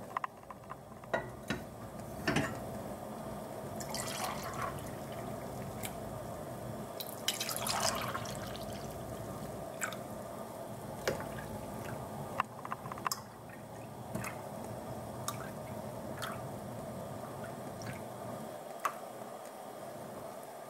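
Liquid yogurt mixture poured from a saucepan into small glass jars: dribbling and dripping with a few light clinks of glass and pan, over a faint steady hum.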